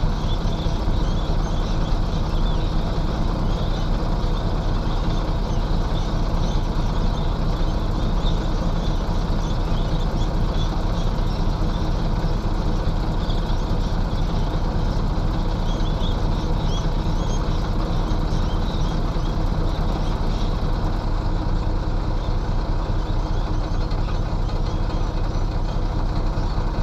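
Diesel engine of heavy earthmoving machinery running steadily at an even speed.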